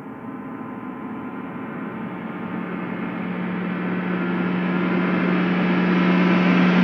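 Title-sequence soundtrack swell: a droning wash of sound with a steady low hum underneath, growing steadily louder and brighter.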